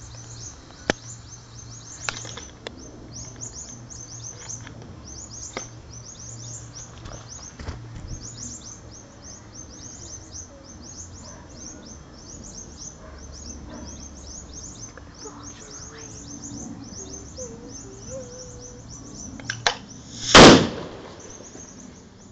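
A sparkler bomb of 25 sparklers packed in a 2-litre bottle goes off with one loud bang about twenty seconds in, a smaller pop just before it. Before that, steady high chirping runs through the background, with a few sharp clicks near the start.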